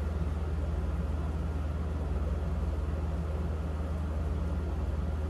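Steady low rumble of a running vehicle engine, with a fast even pulse underneath and no change in speed.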